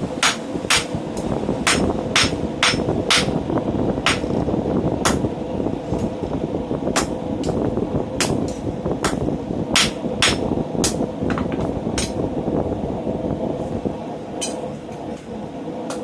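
Hand hammer striking steel on an anvil while forging a scroll: single sharp blows about twice a second at first, then more spaced out, stopping a few seconds before the end. A loud, steady rushing noise runs underneath, like hammering in a wind tunnel.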